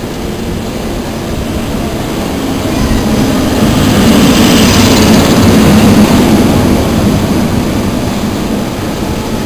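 Greater Anglia locomotive-hauled passenger train of Mark 3 coaches passing through the platform at speed. Its rumble and rush of wheels on rail builds over the first few seconds, is loudest about four to six seconds in, then eases as the coaches go by.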